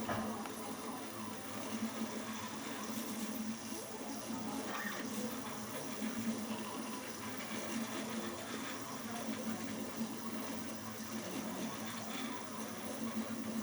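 A 3D printer's stepper motors running as it prints, a steady, uneven whirring and buzzing that shifts as the print head moves.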